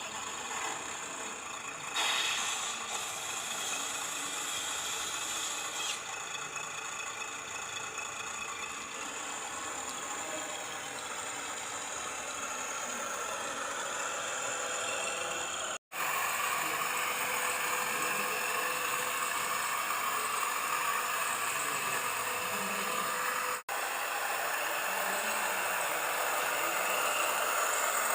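Small electric motors and gearboxes of radio-controlled construction models running, a steady whine with a light mechanical rattle. The sound breaks off twice for a split second, about halfway through and again later.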